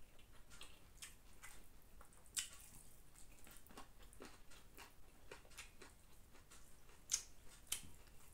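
Quiet hand-eating sounds: fingers squishing and mixing biryani rice on a banana leaf, made up of faint wet squishes and ticks. There is a sharper tick about two seconds in, and the loudest one comes near the end.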